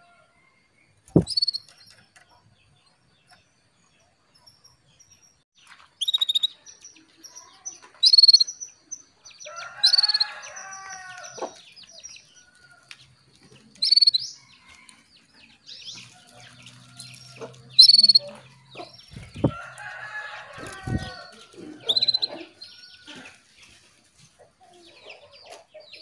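Female canary giving short, sharp call notes, one every two to four seconds: the hen's call that summons a male canary and rouses him to sing. A few low thumps break in, the first about a second in.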